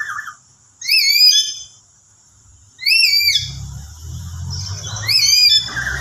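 Lory (nuri) giving three shrill, whistled calls about two seconds apart, each rising and falling in pitch. It is the soft, rolling call used as a lure to set other lories calling. A low rumble underlies the second half.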